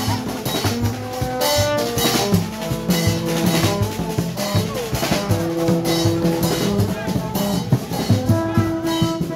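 Haitian rara-style street band playing: hand drums and metal percussion beaten in a steady rhythm under long held hooting notes from blown tube horns.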